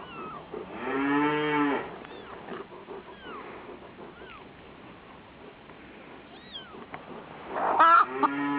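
A cow mooing twice, about a second in and again near the end, each call about a second long. Faint short high cries come in between.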